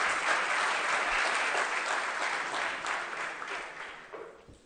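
Audience applauding, a dense patter of many hands clapping that thins out and dies away over the last second or so.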